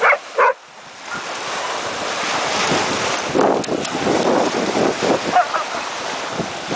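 Small waves washing onto a sandy shore, with wind buffeting the microphone. Two quick dog barks come right at the start.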